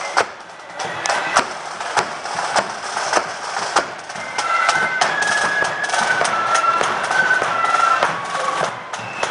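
A flute band playing: bass and side drums beat a steady march rhythm, and a section of flutes comes in with the melody about four seconds in.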